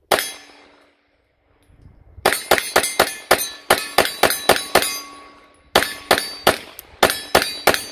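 Semi-automatic 9mm Glock pistol fired from a CAA Micro Roni Gen 2 carbine chassis: one shot, then after a pause of about two seconds two rapid strings of about a dozen and about half a dozen shots, roughly four a second. Each shot is sharp, with a bright metallic ring hanging after it.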